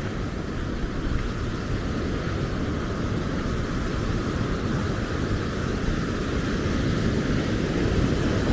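Heavy storm surf breaking and washing up the sand in a steady rushing roar, with wind on the microphone adding a low rumble; it grows a little louder near the end.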